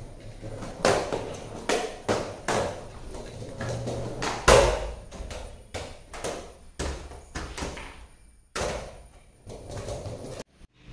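Skateboard knocking and clacking on a tiled floor: about a dozen irregular knocks, the loudest about four and a half seconds in.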